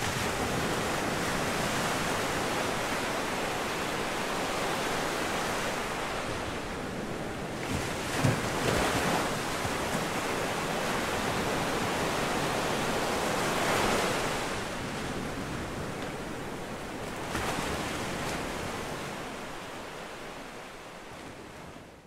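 Sea waves breaking and washing on the shore in a steady wash of surf, with swells about eight, fourteen and seventeen seconds in, fading out near the end.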